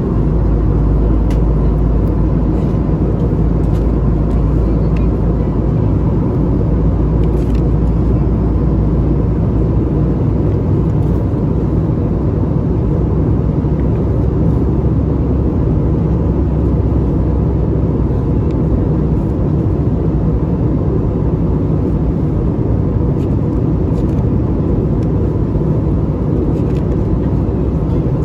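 Airbus A320 passenger cabin in flight: steady engine and airflow noise, heavy in the lows, with a faint thin steady tone.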